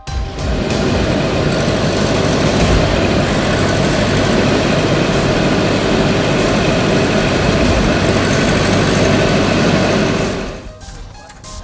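A bank of Super Vac hazardous-location brake-cooling fans running together, a loud, steady rush of air. It fades out about ten and a half seconds in.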